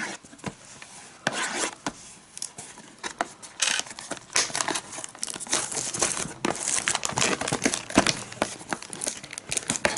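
Plastic shrink wrap being torn and crinkled off a cardboard trading-card box by hand: irregular crackling and ripping, busier from a few seconds in.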